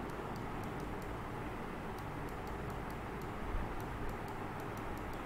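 Steady background noise with a low hum and faint scattered ticks: room tone in a pause between speech.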